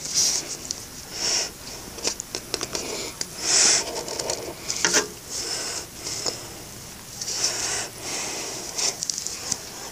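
Crayola Super Tips felt-tip marker scratching across paper in a series of short strokes, with a few small clicks and taps in between.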